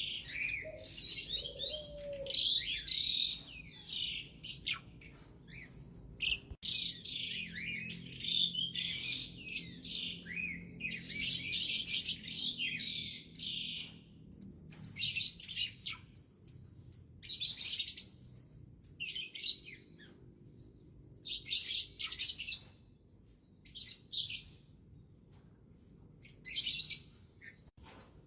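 A songbird singing in repeated bursts of fast, high chirping phrases with short pauses between them.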